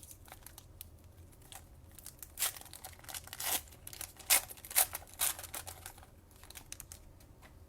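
Plastic trading-card pack wrapper being torn open and crinkled by hand, a run of short sharp crackles that is busiest in the middle and dies away near the end.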